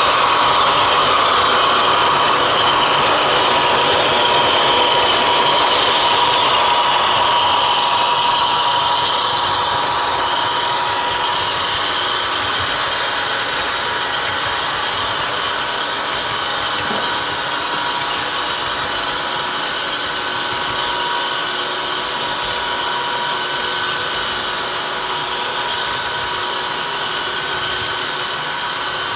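HO scale model freight train rolling past: a steady whir of metal wheels on the track, with the locomotives' sound-decoder diesel sound easing off slightly after about ten seconds as they move away.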